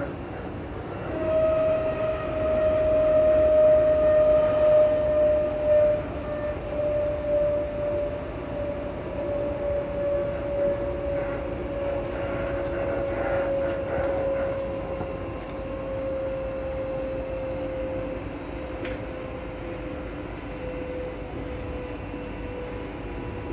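Class 334 Juniper electric train's traction motors heard from the gangway: a clear whine that comes in about a second in and slowly falls in pitch, over the steady rumble of the train running on the rails.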